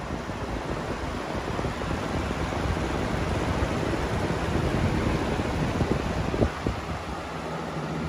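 Comfort Zone Aerospeed box fan running, a steady rush of air that grows louder in the middle as the microphone nears the grille. A couple of brief knocks a little past six seconds in.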